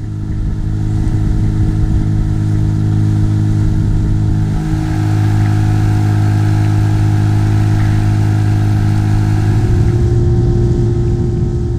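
Outboard motor of an inflatable boat running steadily under way, coming up over the first second and holding a constant engine note, a little stronger from about halfway through.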